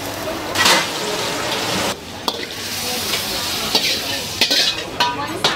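Leafy greens sizzling in a hot wok, with a loud hiss surging about half a second in. Clicks and scrapes of a metal ladle against the wok follow after about two seconds, as the greens are tipped out onto a plate.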